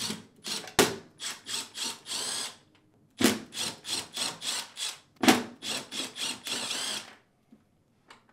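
Cordless driver with a T15 Torx bit backing screws out around the edge of a dishwasher's stainless steel door, running in short bursts. It goes in two runs with a brief pause about three seconds in, and stops about seven seconds in.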